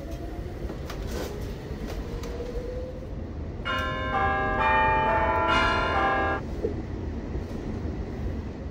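A chime of several overlapping tones sounds for about three seconds from roughly the middle, the notes coming in one after another and then cutting off together, over a steady low rumble.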